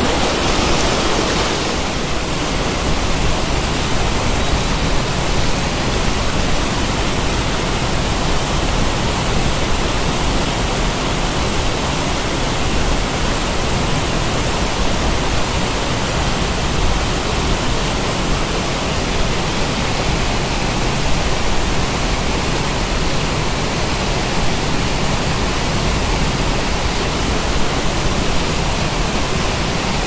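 Mountain stream rushing over boulders and small waterfalls: a loud, steady, unbroken wash of water.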